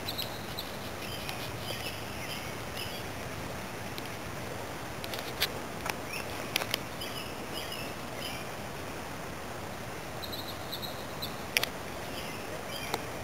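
Small birds singing in short, repeated chirpy phrases over a steady rush of flowing creek water, with a few sharp clicks about halfway through and again near the end.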